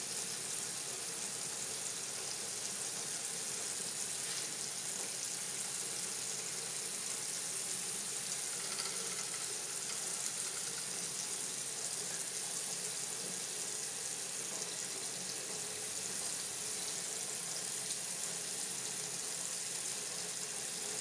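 Kitchen tap running steadily into a full sink, its stream splashing into the water with a constant hiss.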